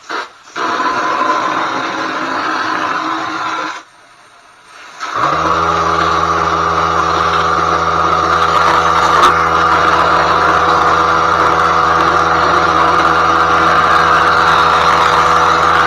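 Drywall texture hopper gun hissing for about three seconds and then cutting off. A little after five seconds the air compressor feeding it starts and runs steadily with a deep motor hum.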